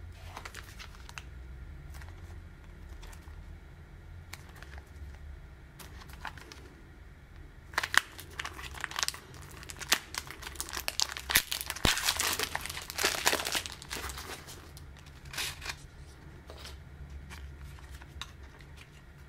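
Clear plastic packaging crinkling and tearing as it is pulled open and crumpled by hand. The crinkling comes as a dense stretch from about 8 to 14 seconds in, with scattered small clicks and rustles before and after.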